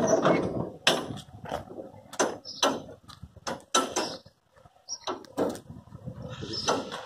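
Metal lock rods and latch handles of a truck's rear cargo-box doors clanking and clicking as they are unlatched, then both doors are swung open: a series of sharp metallic knocks with a few short squeaks.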